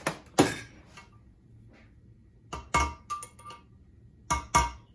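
Light metallic taps on a BSA A65's drive-side roller main bearing, seating it fully on the crankshaft journal over retaining compound: one tap, then two pairs of taps with a short ring, a second or two apart.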